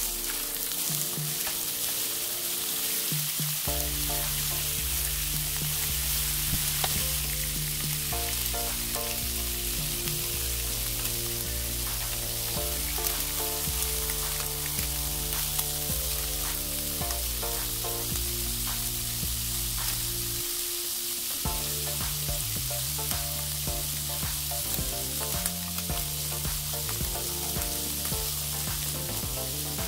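Butterflied shrimp frying in hot oil in a non-stick pan: a steady sizzling hiss, over background music.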